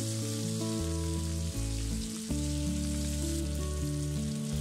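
Hilsa fish steaks frying in oil in a pan, with a steady sizzle. Background music of held notes that change every half second or so plays along with it.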